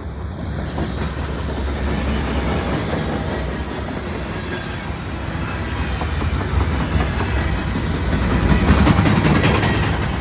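Norfolk Southern freight train, led by an SD70 diesel locomotive, passing close at speed: a steady diesel rumble and rolling wheel noise, with wheels clacking over rail joints, getting louder near the end.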